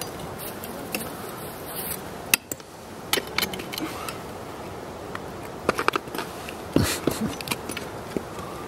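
Ice-axe picks and crampon points of a dry-tooling climber clicking, knocking and scraping on rock, with metal gear clinking. Scattered sharp clicks, loudest about two and a half and seven seconds in.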